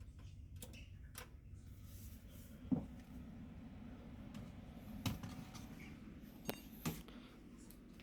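A handful of sharp clicks and knocks, the loudest about three seconds in and a few more near five and seven seconds, over a steady low hum.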